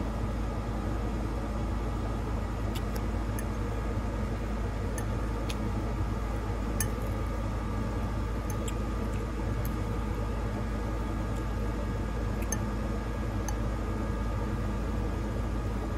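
Small, scattered clicks and smacks of someone chewing and of a fork touching a bowl while eating spaghetti and garlic bread. Under them runs a steady low hum and rumble.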